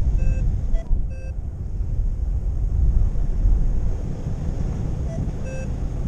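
Wind rushing over the microphone of a paraglider in flight, a steady low rumble. A few short electronic beeps come over it, two in the first second or so and one near the end, typical of a paragliding variometer.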